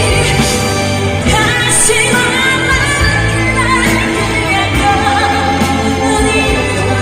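Korean trot song performed live, a singer over an amplified backing track with a steady beat.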